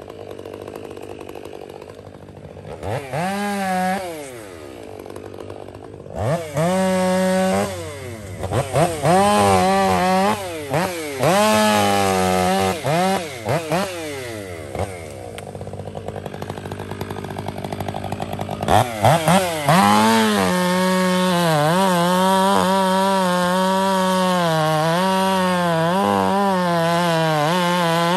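Stihl chainsaw idling, then revved in several short rising-and-falling bursts. From about 19 seconds in it runs at full throttle through a cut in a big conifer log, its pitch wavering under load.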